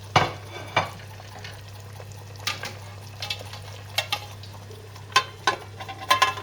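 Metal clinking against a cooking pot: about eight sharp, irregular clinks with a short ring, as the pan of simmering chicken is handled, over a steady low hum.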